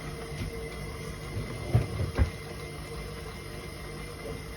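Electric stand mixer running steadily, beating egg and vanilla into the shortbread mixture, with two dull knocks about two seconds in.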